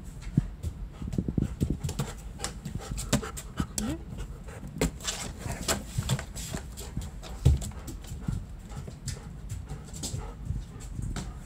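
German Shepherd panting, with many sharp clicks of its claws on the hard floor as it walks about.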